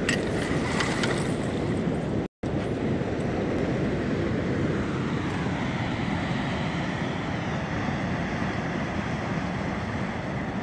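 Steady wind rushing on the microphone over moving sea water, with a few light clicks in the first second. The sound cuts out for a moment about two seconds in.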